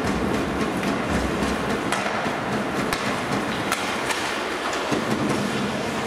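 Live ice hockey play in a rink: skate blades scraping the ice and sticks and puck clacking in scattered sharp clicks, over a steady noise of the arena.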